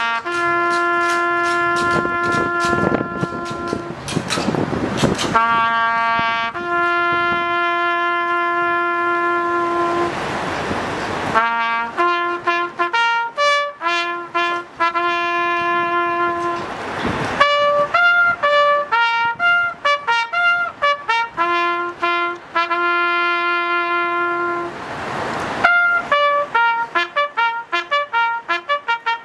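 Solo trumpet playing a slow call of long held notes, moving into quicker, shorter notes near the end.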